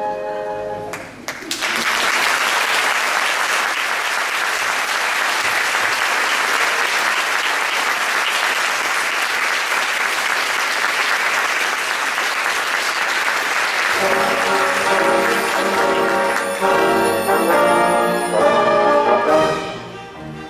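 An orchestra's chord ends about a second in and the audience applauds. About fourteen seconds in, the orchestra starts the next number with brass, playing over the applause until the clapping dies away.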